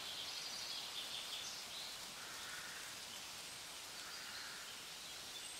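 Quiet outdoor ambience: a steady faint hiss with high-pitched wildlife calls coming and going every second or two.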